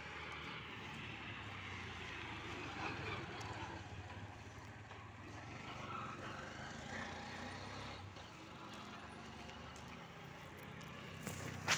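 Street ambience of motor traffic running steadily at a distance, with a brief sharp knock near the end.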